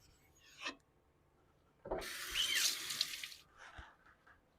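Water running from a tap for about a second and a half, starting about two seconds in, with a light knock shortly after it stops.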